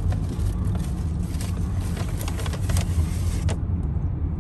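Road and engine noise inside a moving car's cabin, a steady low rumble. Scattered light ticks ride over it and stop abruptly about three and a half seconds in.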